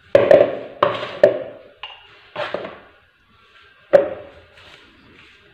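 About five sharp knocks and clinks of kitchen containers and utensils being set down on a stone countertop, each with a short ring.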